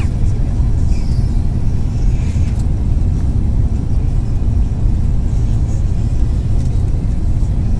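Steady low rumble of engine and airflow noise inside the cabin of an Airbus A350-900 airliner on final approach.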